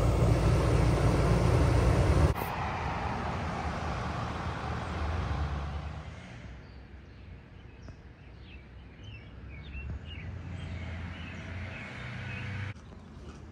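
Outdoor town ambience made of a few cut-together takes: a loud steady rush of noise for about the first two seconds, then quieter background hum with small birds chirping in the second half.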